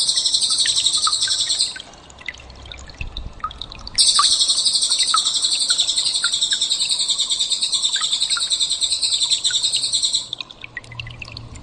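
Cililin song: a long, high, very fast trill that stops about two seconds in, starts again about four seconds in and runs for about six seconds, with faint scattered chirps in the gaps.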